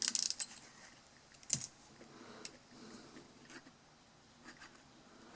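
Small carburetor parts being handled on a workbench: a quick run of light clicks at the start, a sharper click about a second and a half in, then scattered faint clicks and handling noises.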